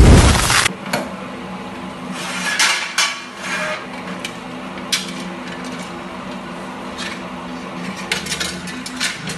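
Workshop clatter: a loud rushing burst at the start, then scattered metal clinks and taps over a steady low machine hum.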